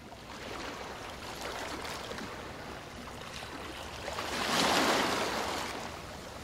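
Steady rushing noise like running water, swelling to its loudest about four and a half seconds in and then easing off.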